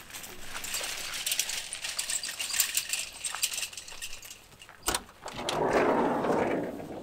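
Small wagon wheels crunching and rattling over gravel. Near the end comes a sharp click, then a rumbling slide: a Volkswagen bus's sliding side door being opened.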